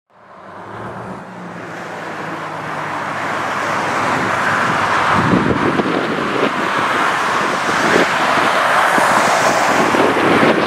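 Military aircraft engine noise swelling over the first few seconds as the plane draws near, then holding loud and steady.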